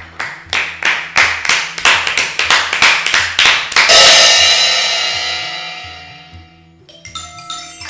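Music: a run of sharp percussion strikes that quicken and grow louder, peaking about four seconds in with a loud ringing crash that fades over about three seconds. Near the end, tinkling mallet-percussion notes begin, over a repeating low bass line.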